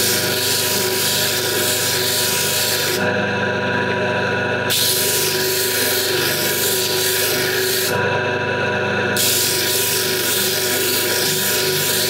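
Bench disc sander running with a steady hum while the end of a short sheet-metal exhaust pipe section is pressed against its abrasive disc. The piece grinds with a loud hiss in three spells and is lifted off briefly twice. The joint face is being ground flat so the sections sit flush for welding.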